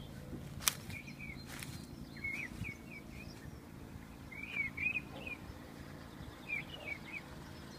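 A small bird chirping, short falling notes in clusters of two to five, several times over a low rumble. A sharp click sounds once, under a second in.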